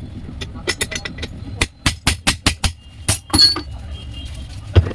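A hammer striking the metal parts of a car alternator being dismantled: an irregular run of sharp metallic knocks, several a second, with one strike about three and a half seconds in ringing out, and a last knock near the end.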